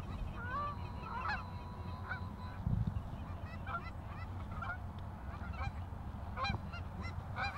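Canada geese honking in flight, many short calls scattered through, over a low steady rumble.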